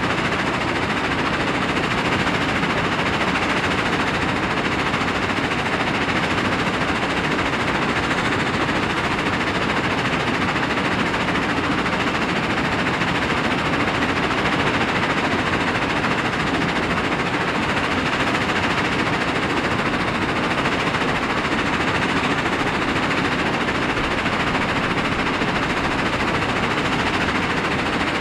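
Crushed rock pouring off a conveyor into the steel hopper of a Finlay 883+ mobile scalping screener and rattling over its vibrating wire-mesh screen deck: a steady, dense clatter of stones on steel with the machinery running underneath.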